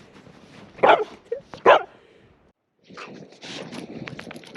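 A dog barking twice, short and sharp, under a second apart. After a brief pause comes a steady run of quick crackling clicks.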